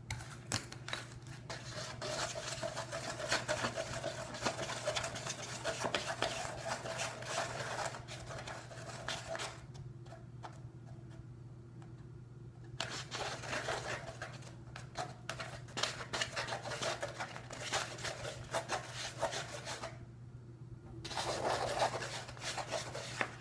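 Glue and soap being stirred in a cup, the stirrer rubbing and scraping against the cup's sides and bottom in quick irregular strokes. The stirring stops briefly twice, about ten seconds in and again about twenty seconds in, leaving a steady low hum.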